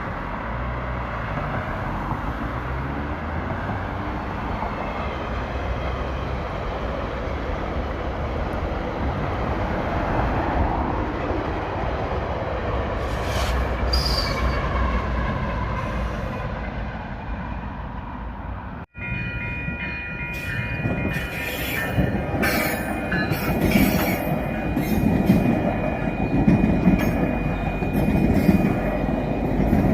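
GO Transit commuter train running on the rails, a steady rumble of wheels and track. About two-thirds of the way through the sound cuts out for a moment, then resumes with steady high tones over the rumble.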